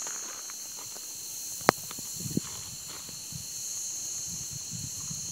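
Steady, high, even chirring of a night insect chorus. A single sharp click comes about a second and a half in, followed by a few soft low bumps.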